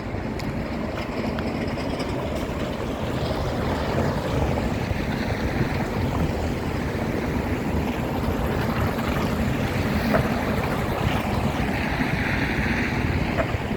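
Steady low rumbling outdoor noise, with a few faint clicks.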